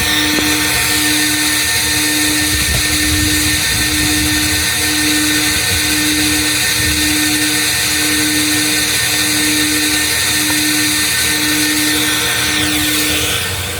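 Vacuum cleaner motor running steadily with a high whine while the car interior is vacuumed. A low beep repeats about once a second over it and stops shortly before the end.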